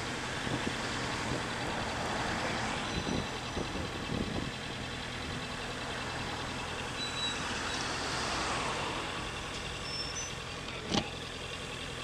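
Street traffic heard from a slowly moving motorcycle: a steady low engine hum under road and wind noise, with one sharp click about eleven seconds in.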